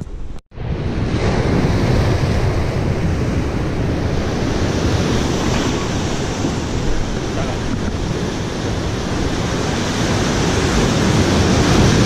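Sea surf breaking and washing over rocks, with wind buffeting the microphone. The sound cuts out briefly about half a second in, then runs loud and steady.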